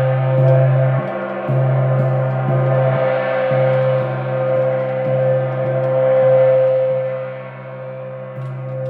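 Moon gong struck repeatedly with a mallet, roughly once or twice a second, its loud sustained ringing wash holding a steady hum throughout.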